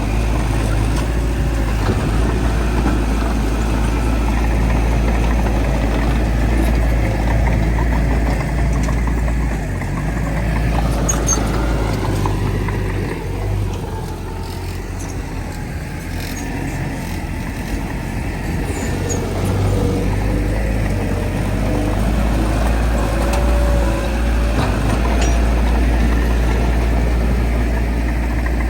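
Heavy diesel earthmoving machinery, a bulldozer and dump trucks, running with a deep, steady engine rumble that eases slightly about halfway through.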